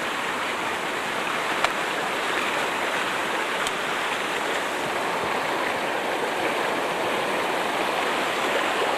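A rain-swollen, muddy mountain stream rushing over rocks in a steady whitewater rush; the water has risen and the flow quickened into a flood torrent.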